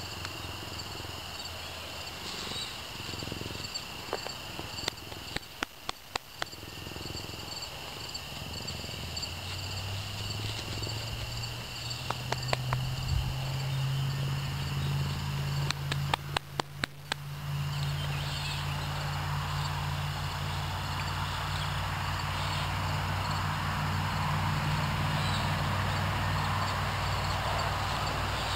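Steady chirping insect chorus in high continuous and pulsing tones. Brief clusters of sharp clicks come three times, and a low hum with rustling noise builds up from about halfway.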